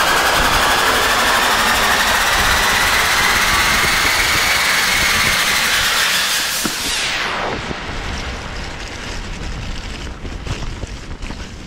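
Riding noise from a 2020 Trek Remedy 8 mountain bike descending a muddy forest trail: a dense wind rush over the chest-mounted camera with tyre noise. About seven seconds in the rush drops away suddenly, leaving a run of knocks and rattles from the bike over the rough ground.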